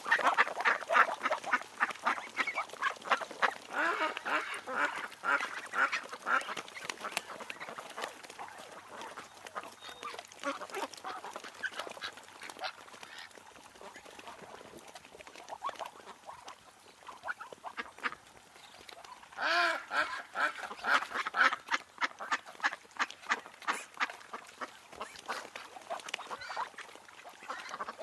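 A flock of ducks quacking in quick, overlapping calls, busiest early on and again from about twenty seconds in, with a quieter stretch in between.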